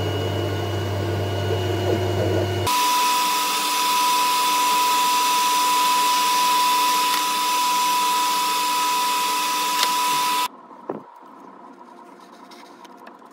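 CNC router spindle cutting into a wood block, a steady low hum. It changes abruptly to the high, steady whine of a small handheld power tool, which runs for about eight seconds and cuts off suddenly. A single light knock follows in the quiet.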